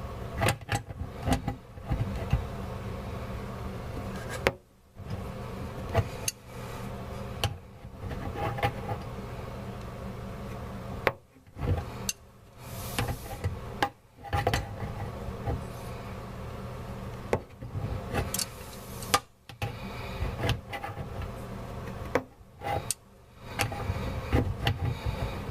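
Clicks, knocks and scraping of a wrench tightening the nuts on a faucet's water supply lines, over a steady low hum.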